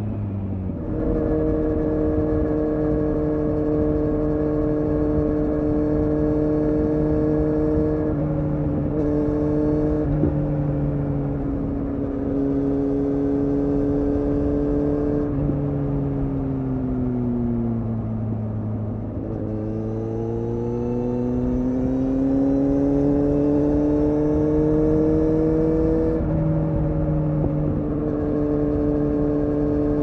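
2015 Kawasaki Z800's inline-four engine with an Akrapovic exhaust, heard on board while riding. The engine note holds steady at cruise, sags slowly a little past halfway as the revs drop, then climbs again under throttle for several seconds before settling near the end.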